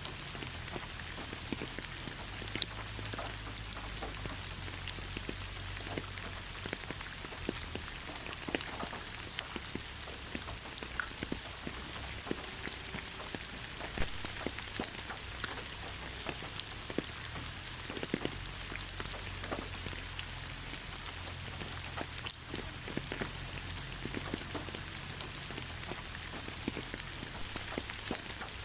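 Steady rainfall: an even hiss of rain with many individual drops ticking sharply and irregularly.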